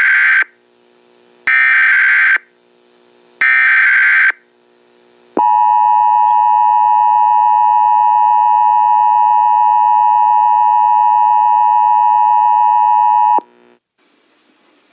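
Emergency Alert System broadcast tones. Three screeching bursts of SAME header data, each about a second long, are followed by the steady two-tone EAS attention signal, held for about eight seconds and then cut off sharply.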